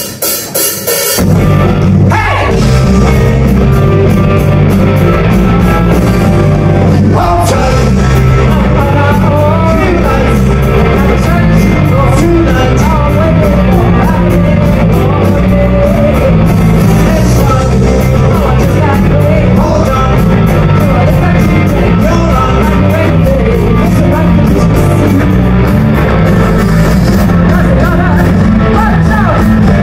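A live rock band plays at full volume: two electric guitars, drums and a woman singing lead. The band comes in loud about a second in.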